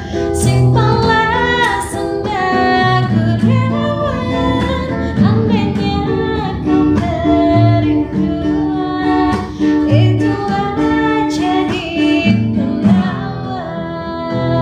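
A woman singing a melody to an acoustic guitar being strummed.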